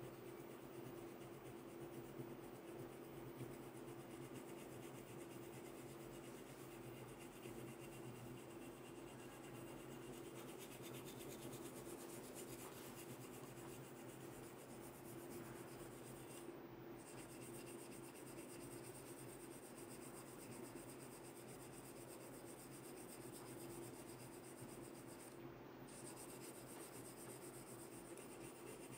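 Wooden comb drawn through short hair and scratched over the scalp: a faint, soft scratching, over a steady low hum.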